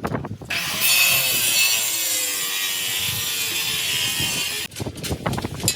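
Power saw cutting through material in one continuous cut of about four seconds, a hissing grind with a motor whine under it, starting about half a second in and stopping abruptly. Scattered knocks and clicks come before and after it.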